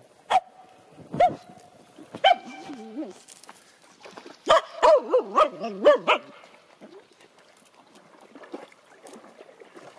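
Finnish Spitz yelping and whining, eager to fetch a stick floating out in the water. A few single high yelps and a short whine, then a quick run of about six yips about halfway through.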